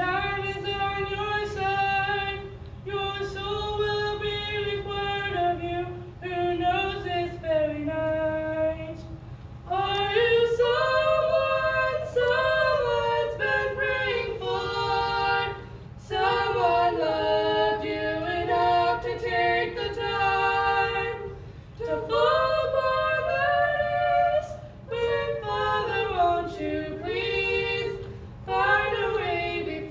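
Two female voices singing a Christian song unaccompanied in two-part harmony, in phrases of a few seconds with short breaks for breath.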